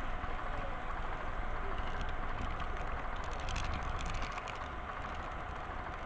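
Steady rumble of a model train's wheels and drive running along the track, picked up by a camera riding on the train, with a quick run of clicks about two thirds of the way through as the wheels cross a turnout.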